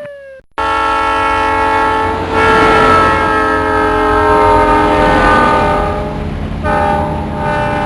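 Train horn sounding a long, steady chord over the low rumble of a train, starting abruptly about half a second in; it breaks off briefly near the end and sounds again.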